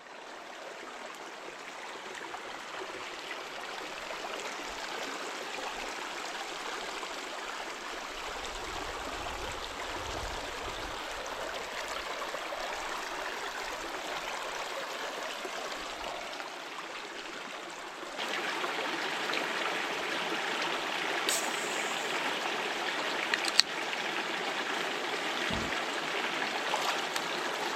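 Mountain stream running over rocks, a steady rush of water that grows louder about eighteen seconds in. A couple of sharp clicks sound near the end.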